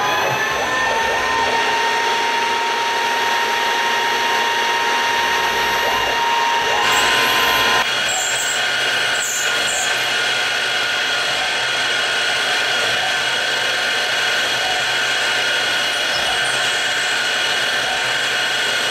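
PM-727M CNC mill's spindle running steadily with a whine, drilling into an aluminium block. About seven seconds in, the hiss of a mist coolant spray starts and carries on with the spindle.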